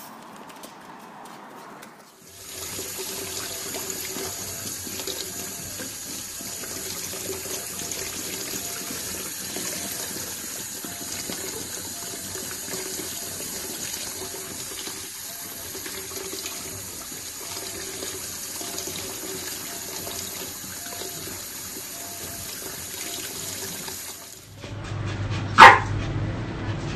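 Tap water running steadily into a bathtub while a puppy is bathed, with faint short whines repeating about once a second. Near the end, a small dog gives one sudden, loud, sharp cry.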